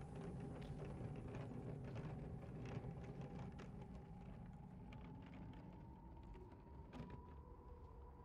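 Wheeled suitcase rolling over a paved sidewalk: a steady low rumble from the wheels with irregular light clicks and taps, along with footsteps. The rumble fades toward the end as it moves off.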